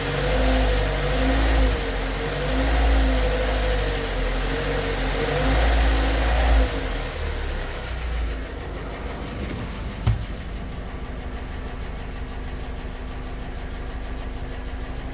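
Volkswagen CrossFox engine running with an unidentified mechanical noise that the owner suspects may be a lifter or a bearing. It runs louder and higher for about the first seven seconds, then settles to a steady, quieter idle, with a single click about ten seconds in.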